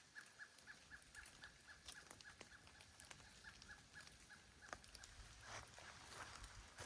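Faint bird calling in a rapid series of short, evenly spaced high notes, about five a second, which stops about two-thirds of the way through, with scattered faint clicks around it.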